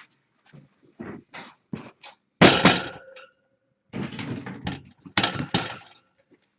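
Plastic litter scoop raking through cat litter and knocking against the litter box: a series of sharp knocks and short gritty scrapes, the loudest about two and a half seconds in.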